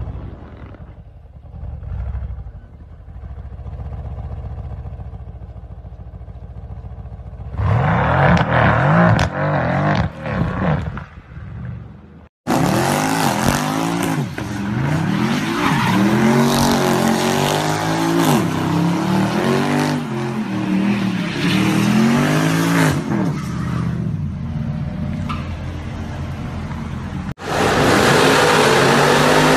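Mercedes-AMG C63 V8 engines revving hard in three short scenes. First comes a low rumble, then sharp revs that rise and fall from about eight seconds in. After a sudden cut there is a long run of repeated up-and-down revving with the hiss of spinning tyres during a smoky burnout. Near the end a loud, steady high-rev drone begins another burnout.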